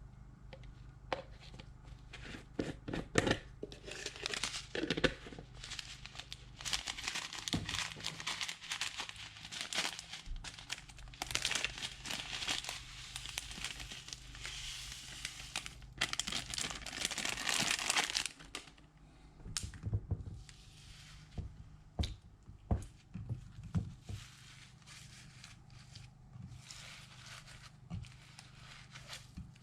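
Slime being worked by hand, crackling and crinkling with many small pops. The crackling is densest in the middle and thins to scattered clicks later, over a steady low hum.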